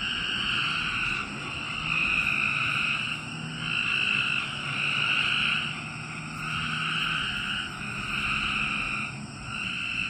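Night chorus of frogs: many calls overlapping in pulsing swells about a second long, rising and falling without a break.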